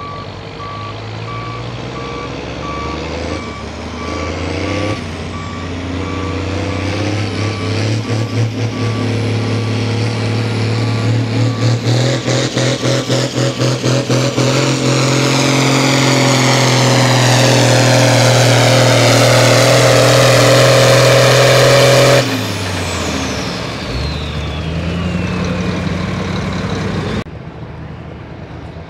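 Pulling tractor's engine under full throttle on a pull run. It builds up, surges in quick pulses, then holds steady and loud. About 22 seconds in it cuts off sharply, its pitch dropping and a high whine falling away as it winds down. A backup alarm beeps steadily through the first several seconds.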